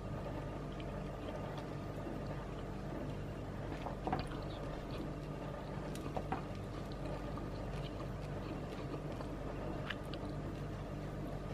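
Steady low hum of a running household machine, with a few faint light taps and rustles as hands toss small snapper pieces in a bowl of clumped tapioca flour.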